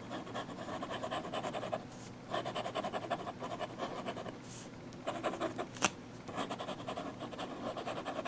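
Steel nib of a Pilot Metropolitan fountain pen scratching across sketchbook paper in quick back-and-forth scribbling strokes, broken by brief pauses, with a single sharp tick about six seconds in.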